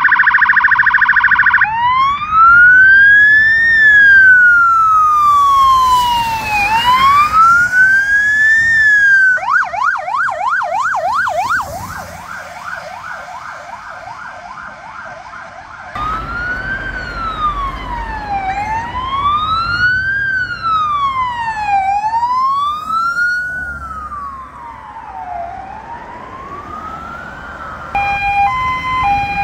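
Electronic emergency-vehicle sirens passing. A slow wail rises and falls every few seconds, switches for several seconds to a fast yelp of about four sweeps a second, then returns to the wail. Near the end it gives way to a different siren of stepped, alternating fixed tones.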